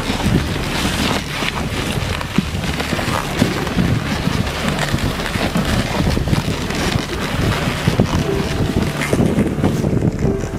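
Steady wind noise buffeting the microphone on a moving dog sled, over the continuous rush of the sled running across snow behind a team of huskies.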